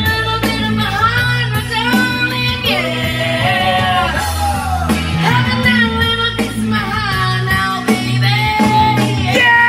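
A voice singing a rock song over instrumental backing, with held bass notes underneath.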